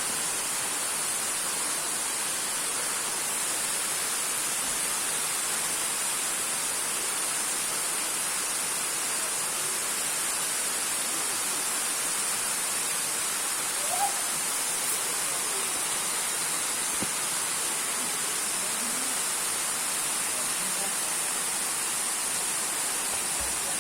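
Waterfall pouring steadily, a constant rushing noise. A brief faint blip sounds about fourteen seconds in.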